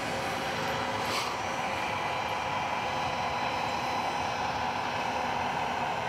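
Ghost Controls dual-gate opener's electric actuator arms running steadily with a motor whine as they swing a pair of 12-ft metal tube gates closed.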